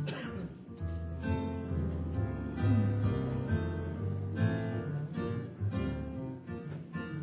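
Slow instrumental music of held chords that change about once a second, with a keyboard-like sound.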